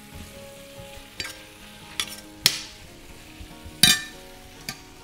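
Courgette ribbons and broad beans sizzling in a stainless steel frying pan as they are stirred, with a spoon clinking sharply against the pan about five times.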